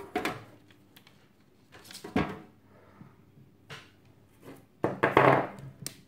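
Handling noise: a few short knocks and rustles as fingers work a small circuit board in the alligator clips of a flexible-arm helping-hands stand. The loudest cluster comes about five seconds in.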